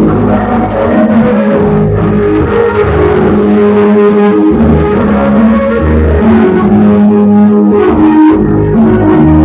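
Music led by plucked guitar over a bass line.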